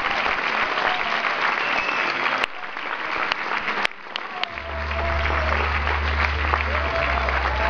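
Audience applauding, breaking off sharply about two and a half seconds in with a few clicks. From about halfway a deep, steady low tone sets in with music over it.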